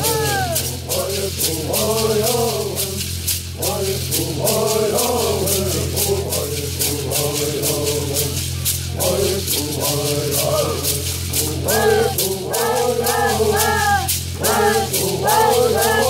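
Bird singers chanting a bird song in unison, in phrases with short breaks, over gourd rattles shaken in a steady quick beat.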